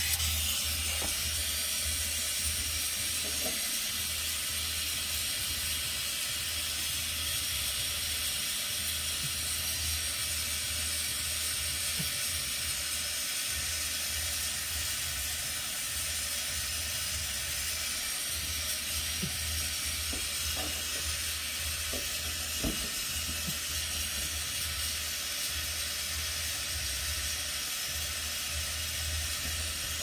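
Gas brazing torch burning with a steady hiss and a low rumble of flame, heating the copper pipe joints at a refrigerator compressor. A few faint ticks sound over it.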